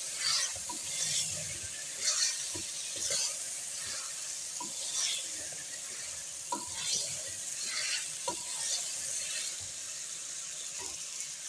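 Mutton pieces sizzling in oil in a pressure cooker as a wooden spoon stirs and scrapes them, repeated scraping strokes roughly once a second with light knocks of the spoon on the pot. The meat is being fried (bhuna) with freshly added ginger-garlic paste.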